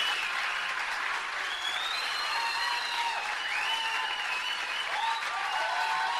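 Crowd applauding and cheering: an even wash of clapping with faint voices rising and falling over it.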